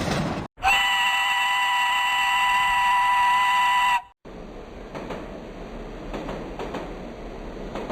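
A train horn blows one steady multi-note chord for about three seconds and cuts off abruptly. After a brief gap comes the quieter rumble of a train running on rails, with faint clicks.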